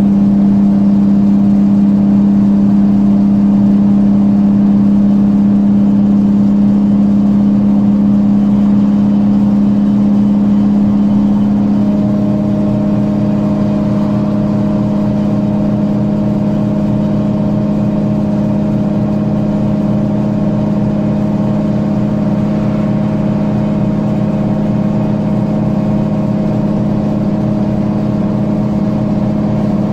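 Mercedes-Benz Citaro O530G articulated bus's diesel engine and Voith DIWA 3 automatic gearbox, heard on board while driving: a loud, steady drone. About twelve seconds in, the sound shifts to a slightly quieter drone with a new, higher tone.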